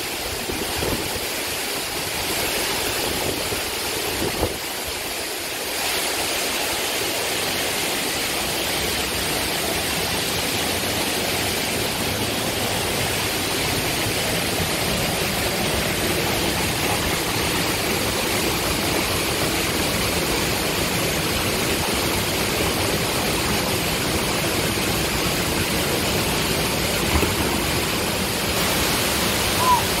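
Steady rush of water from a waterfall, growing a little louder about six seconds in.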